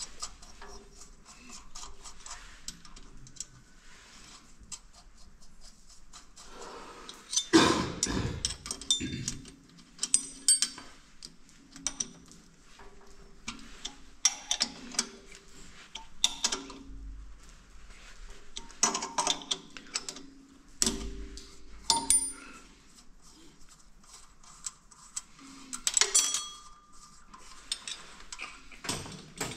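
Metal tools and engine parts clinking and knocking as they are handled, in an irregular run of sharp clicks, with the loudest knocks about 8 seconds in and again near the end.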